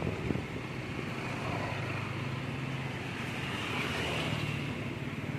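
Hot oil sizzling steadily as battered chicken pieces deep-fry in a wok, over the low steady hum of a motor vehicle's engine.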